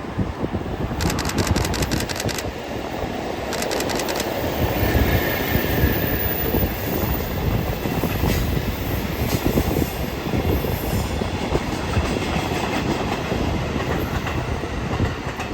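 Freight train of Chiki flat wagons hauled by an EF65 electric locomotive rolling past, with a steady rumble. Wheels clatter over rail joints in quick runs of clicks about a second in and again near four seconds.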